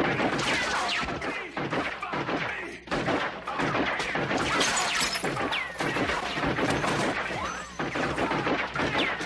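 A submachine gun firing long rapid bursts at close range, with glass and bottles shattering and bullets ricocheting off metal armour in short falling whines. The firing has two brief breaks.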